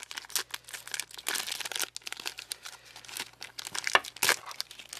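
Foil trading-card booster pack wrapper crinkling as it is handled and opened: a dense run of irregular crackles and rustles.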